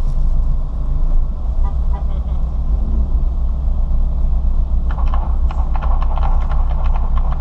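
Ford Fiesta ST's turbocharged engine running hard at speed, a steady low drone, with a rougher crackling mid-pitched noise joining about five seconds in.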